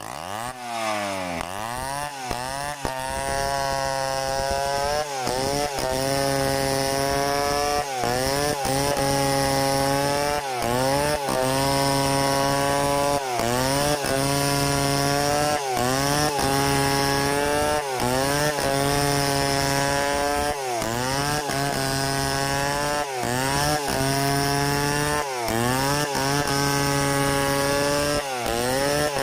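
Stihl 070 two-stroke chainsaw revving up from idle and then ripping lengthwise through a log at full throttle. Its revs dip and recover every second or two as the chain digs into the wood.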